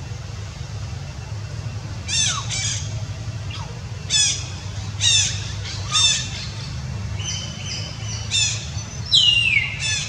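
A series of about ten short, high-pitched animal calls, each sliding down in pitch. They begin about two seconds in, and the longest, loudest ones come near the end. A steady low rumble runs underneath.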